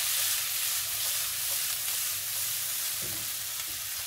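Diced red and yellow bell peppers sizzling in olive oil in a frying pan as they sauté and brown: a steady hiss.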